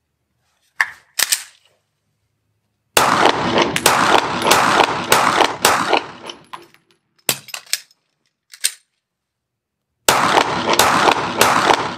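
Semi-automatic pistol drill: a couple of sharp metallic clicks as the slide is racked, then a rapid string of shots with the reverberation of an indoor range. A speed reload follows, with clattering and a click as a fresh magazine goes in, and a second rapid string of shots begins near the end.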